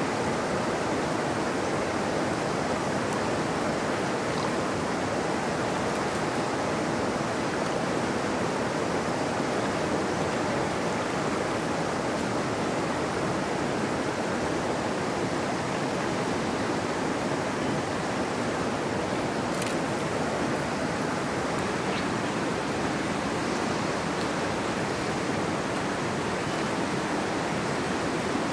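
Steady rush of a fast-flowing, high-gradient mountain river running over rocks: an even, unbroken wash of water noise.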